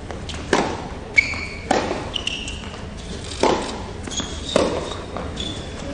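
Tennis rally on an indoor hard court: the ball is struck by the rackets about once a second, with bounces between strokes, and players' shoes squeak briefly on the court surface.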